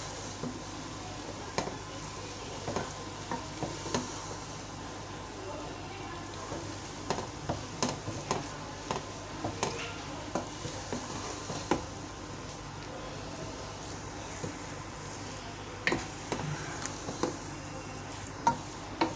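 Wooden spatula stirring and scraping mashed boiled potato and spices around a non-stick pot, with irregular light knocks of the spatula against the pan over a faint steady sizzle.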